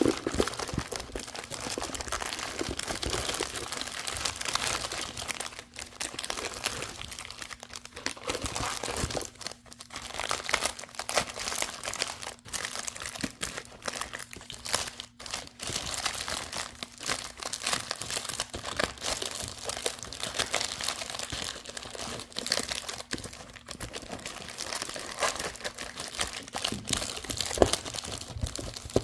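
Small plastic bags crinkling and rustling as they are handled, with a continual patter of small crackles.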